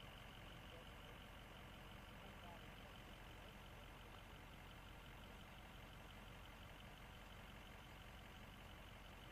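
Near silence: a faint, steady low hum and hiss with no distinct event.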